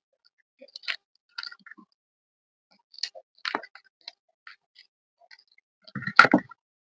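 Dry, crumbly chalk-like pieces being crushed: scattered small crackles and snaps, with a louder cluster of crunching about six seconds in.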